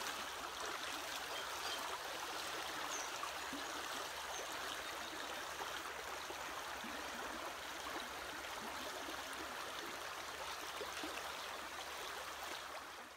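A small creek rushing steadily over rippled shallows, an even watery hiss that fades out at the very end.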